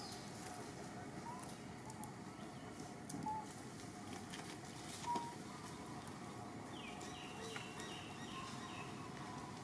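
Outdoor ambience with birds calling: a few short chirps, then, about two thirds of the way in, a bird's run of about six quick falling notes.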